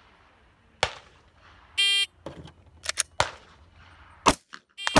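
Electronic shot timer beeps once, briefly; the pistol's slide is then racked with a couple of metallic clicks to chamber a round, and the pistol is fired once about four seconds in. Another sharp report follows near the end.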